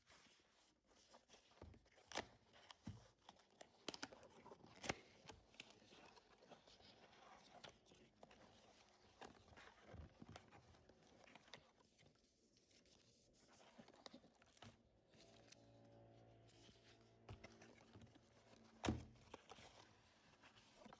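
Faint handling of a cardboard box and its packaging: rustling, tearing and scraping, broken by scattered light knocks and one sharper thunk near the end.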